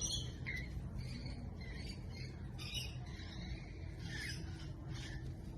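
A bird giving a series of short, high chirps and squawks at irregular intervals over a low, steady background rumble.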